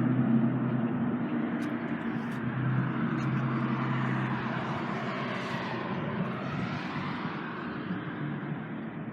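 A motor vehicle going past. Its engine hum drops away about a second in, and the road noise fades steadily as it moves off.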